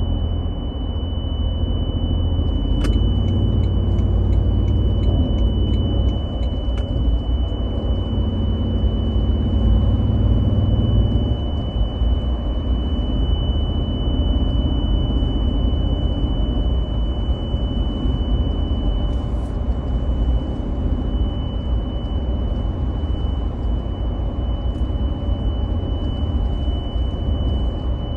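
A steady, high-pitched tone sounding without a break inside a 2023 Toyota Tundra Platinum, the sudden deafening noise the truck started making on the highway, over low road and engine rumble.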